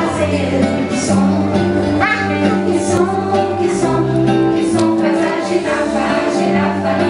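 A song with singing over an accompaniment of held bass notes, playing steadily throughout.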